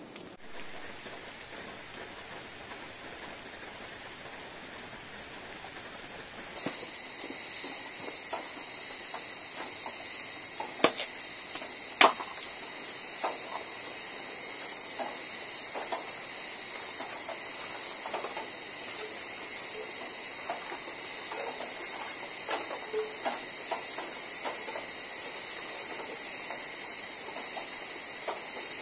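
Faint patter of light drizzle, then a steady high-pitched insect chorus sets in. Over it come small clicks and two sharp cracks of sticks and kindling being laid by hand at a fireplace.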